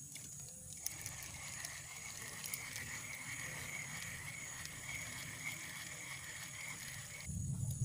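A frog calling in one steady, high trill that starts about a second in and stops abruptly near the end, over light rain pattering and ticking.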